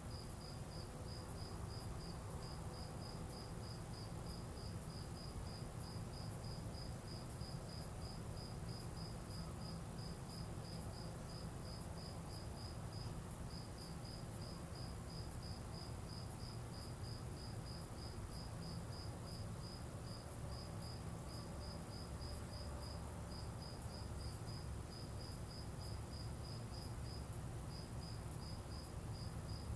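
Crickets chirping in a steady, even rhythm of about three chirps a second, pausing briefly a few times, over a steady low noise.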